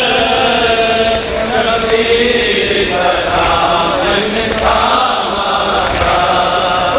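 Devotional chanting by a voice in long held, wavering notes, with short breaks between phrases.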